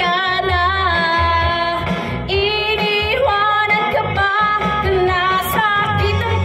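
A woman singing a song cover into a handheld microphone over a karaoke backing track with a steady bass beat; her long held notes waver with vibrato.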